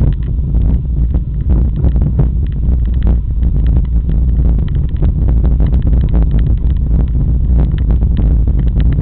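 Mountain bike descending a loose, rocky track: steady heavy wind rumble on the microphone, broken by frequent clicks and rattles from the tyres and bike over the stones.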